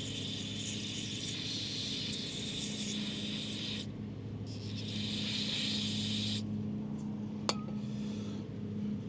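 Aerosol can spraying into a brake caliper bracket's guide-pin bore to flush out old copper anti-seize: a steady hiss that stops a little under four seconds in, then a second burst of about two seconds. A lawn mower drones steadily in the background.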